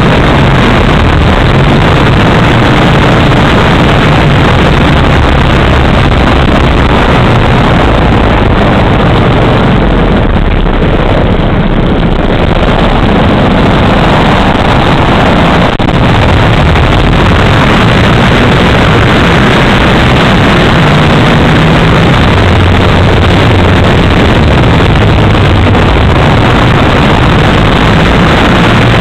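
Model aerobatic plane's 3W two-stroke gasoline engine and propeller running hard in flight, close to the microphone with heavy wind rush over it. The sound eases briefly about ten to twelve seconds in, then comes back up.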